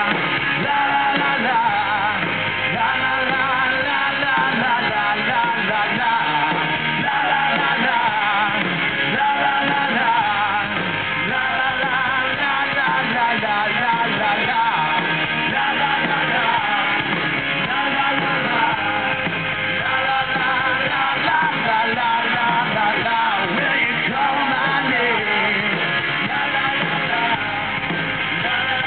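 Live rock band playing loudly, with a man singing lead over electric guitar.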